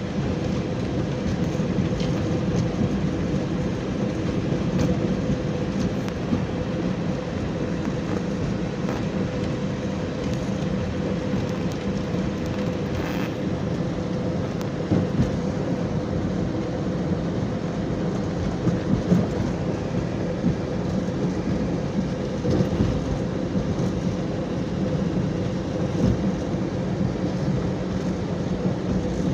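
Warning siren sounding at one steady pitch without rising or falling, over a steady rumble of background noise with a few faint knocks.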